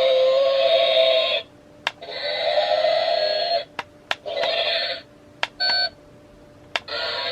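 Remote-control dinosaur toy's built-in speaker playing snatches of its electronic songs, three stretches that stop and start again, with a short beep a little past halfway. Sharp clicks fall in the gaps between them.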